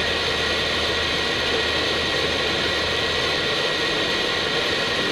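Steady rush of airflow and hum on the flight deck of an Airbus A319 in flight, with a low drone underneath.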